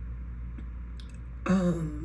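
A short wordless vocal sound from a woman, like a murmur or hum, about one and a half seconds in, over a steady low hum.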